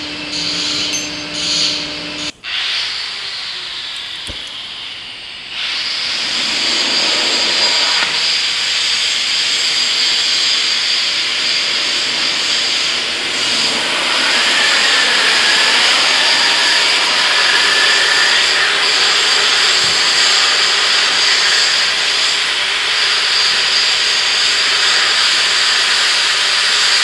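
Oxy-acetylene cutting torch burning with a steady loud hiss, growing louder about halfway through as it cuts into the steel of a bucket cylinder pin.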